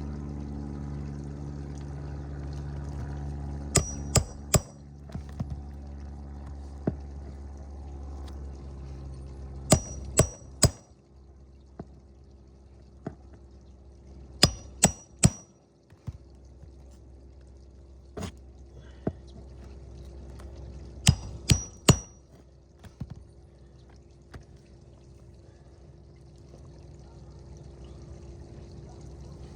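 Hammer driving roofing nails through a shingle: four sets of three sharp blows with a metallic ring, with a few lighter taps between them, over a steady low hum.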